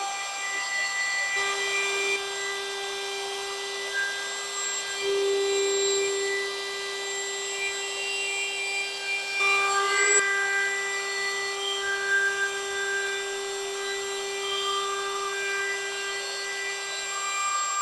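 A woodworking power tool running steadily with a constant whine.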